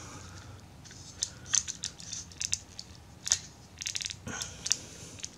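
Plastic parts of a Takara Tomy Masterpiece MP-17 Prowl transforming robot figure clicking and rattling in the hands as they are shifted and pressed to make a piece fit. The clicks are small and irregular, with a quick run of ticks about four seconds in.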